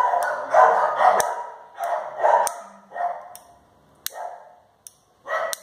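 A dog barking repeatedly, a string of short barks about two a second that thins out after about three seconds, with one more bark near the end.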